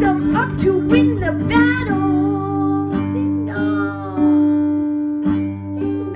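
Acoustic guitar strummed under a singing voice. The voice is heard over roughly the first two seconds, and later chords ring on between single strums.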